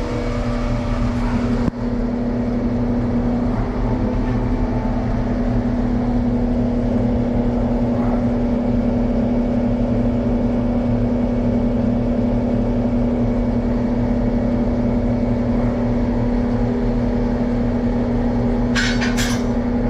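An engine running at a steady idle, with a constant low hum that does not change. A brief metallic clatter comes near the end.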